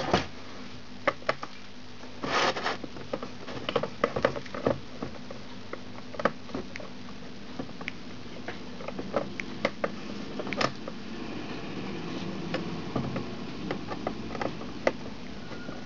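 Screwdriver working the screws of a DVD-RW drive's sheet-metal case, with scattered clicks, scrapes and light knocks as the drive is handled. A longer scrape comes about two and a half seconds in.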